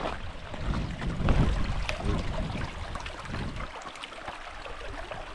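Shallow stream running over stones, with boots stepping on wet rocks and wind rumbling on the microphone.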